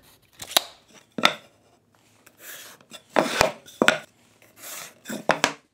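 Lumber and hand tools being handled on a wooden workbench: a series of sharp knocks and taps of wood and tools, with two short stretches of scraping between them.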